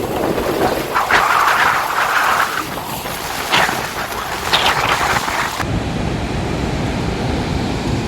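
Wind buffeting the microphone over the rush of river water and falls spray, in irregular gusts. A little over halfway through it changes abruptly to a deeper, steady rumble.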